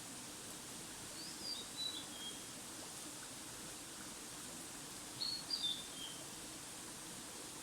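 A songbird sings two short phrases, each a quick run of a few notes stepping down in pitch, about four seconds apart, over a steady outdoor hiss.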